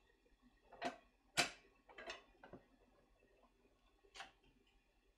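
Plastic seasoning containers being handled: about half a dozen short clicks and taps, the loudest about a second and a half in, a few more just after, and one more about four seconds in.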